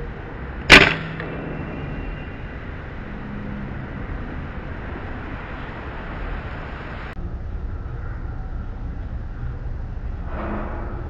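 A single shot from an FX Dreamline Pup .22 PCP air rifle on its low 15 foot-pound power setting: one sharp crack about a second in. A steady background hiss changes abruptly about seven seconds in, and a brief softer noise follows near the end.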